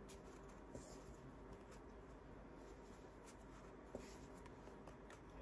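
Near silence with faint rustling and soft clicks of a metal crochet hook working thick cotton cord, and one slightly sharper tick about four seconds in.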